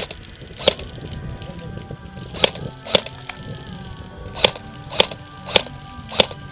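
Magpul Masada airsoft replica rifle fired in single shots, about eight sharp cracks unevenly spaced, some in quick pairs, over background music.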